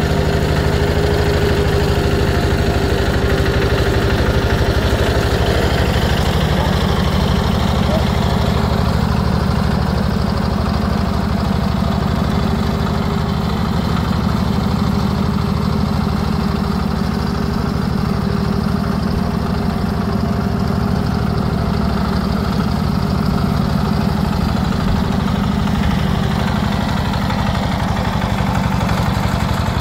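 Small compact tractor's engine running steadily at low revs while it slowly tows a pink orchard speed sprayer.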